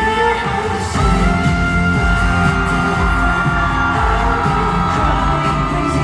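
Live pop song played through arena speakers and recorded from the audience: singing over a heavy bass beat that kicks in about a second in, with audience yells.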